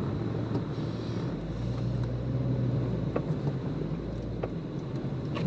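Off-road 4x4's engine running under load while the vehicle is stuck in deep soft snow, its low drone growing louder and heavier from about a second in until about four and a half seconds, then easing back. A few faint clicks sound over it.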